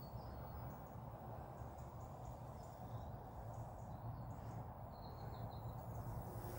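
Faint outdoor background: a low steady rumble with a few short, faint bird chirps, a small run of them about five seconds in.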